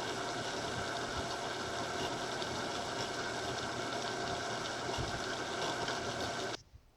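Home-built small metal lathe running steadily on its slowest speed: the electric motor's hum and the belt drive turning through step pulleys and a jackshaft. It cuts off abruptly near the end.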